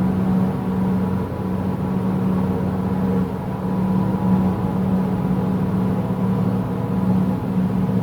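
Steady low droning hum with a strong even tone and fainter overtones, of unidentified origin; the recordist compares it to a motor glider or a lawn mower and suspects high-voltage power lines.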